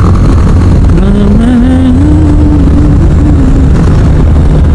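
BMW G310GS single-cylinder engine running at road speed under heavy wind rumble on the microphone. About a second in, a pitched tone rises and wavers, then fades out about two-thirds of the way through.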